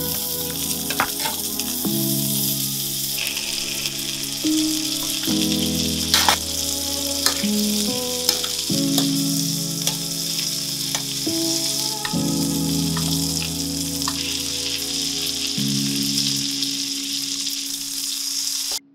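Butter sizzling and foaming in a stainless frying pan as a veal fillet and sweetbreads are basted with a spoon, with a few sharp clicks of the spoon against the pan.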